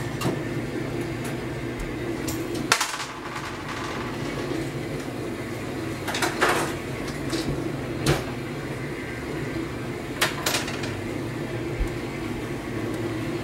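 Dishwasher running with a steady hum, with a few sharp clicks and knocks, the loudest about three seconds in.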